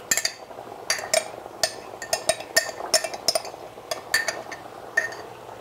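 A spoon scooping salsa out of a glass jar, clinking against the glass again and again at roughly two sharp, ringing clinks a second.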